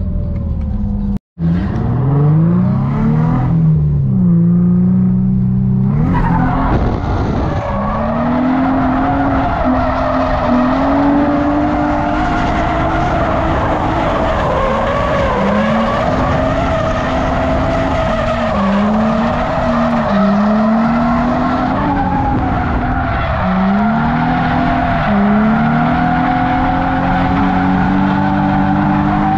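Car engine revving up and down in repeated climbs while drifting. From about six seconds in, the tyres squeal steadily and loudly over it as the car is held sideways. The sound cuts out briefly about a second in.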